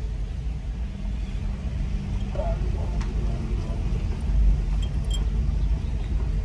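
Steady low rumble of a car moving slowly, heard from inside the cabin.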